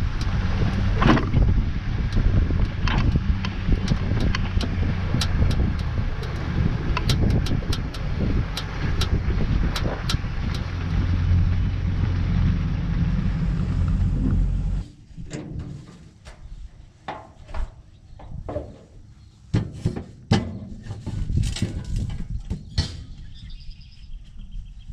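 A vehicle engine running steadily. It cuts off abruptly about fifteen seconds in, followed by scattered knocks and clicks.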